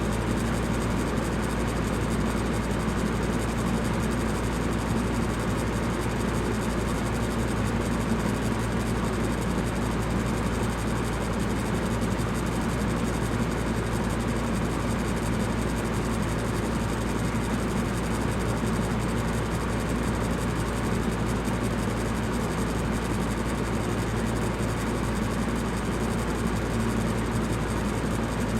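Electric fan running steadily: an even rush of air over a constant low hum.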